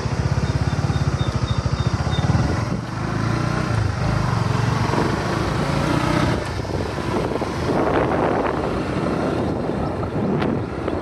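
Motorcycle engine pulling away, its pulsing beat strong for the first couple of seconds, then settling into a steady running noise mixed with the rush of riding.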